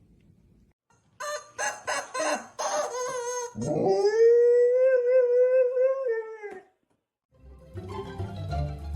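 A dog gives a run of short yips and then one long, steady howl of about three seconds, rising at the start and dropping off at the end. Background music with plucked strings starts near the end.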